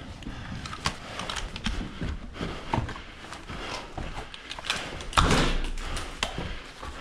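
Footsteps and the clatter and rustle of gear as players move through an indoor room, with scattered clicks and knocks and a louder scuffing clatter about five seconds in.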